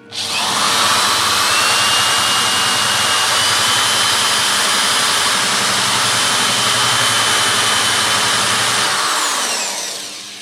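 Electric drill running at full speed with a steady high whine, cutting a countersink for a countersunk screw head. It spins down near the end, its whine falling as it stops.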